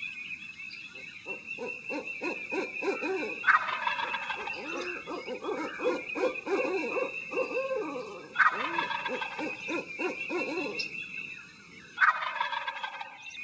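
Wild turkeys: a gobbler gobbles three times, each gobble a loud falling rattle of about two seconds, over a continuous run of short calls from other turkeys.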